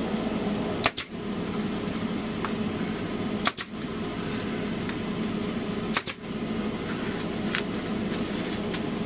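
Arrow PT50 pneumatic air stapler firing three staples about two and a half seconds apart, each a sharp snap, driving them through foil insulation into wood. A steady machine hum runs underneath.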